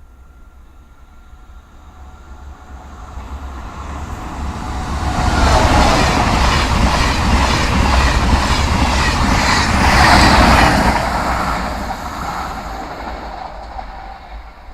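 SNCF TGV Duplex high-speed train passing at speed. It swells from faint to loud over a few seconds, stays loud for about six seconds, then fades away.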